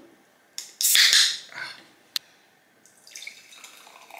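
Ring-pull can of fizzy orange soda cracked open: a click, then a loud hiss of escaping gas, then a single sharp click a second later. Near the end the soda starts pouring into a glass.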